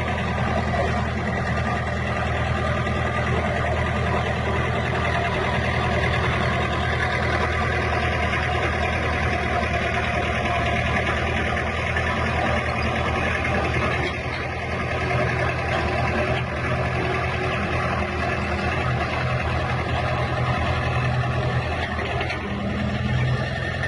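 Bulldozer's diesel engine running steadily, with a deep, even hum and small dips in level now and then.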